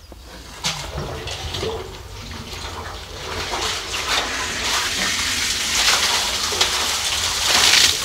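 Well water splashing and gushing as a submerged drainage pump, run without a hose, throws a jet up out of the well; the splashing grows steadily louder and is strongest near the end.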